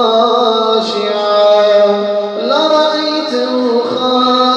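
A man's voice chanting Quran recitation in a drawn-out melodic style, holding long notes, with a glide up in pitch about two and a half seconds in.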